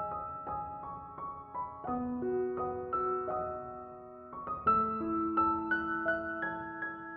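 Background piano music: a gentle melody of single notes over sustained low notes.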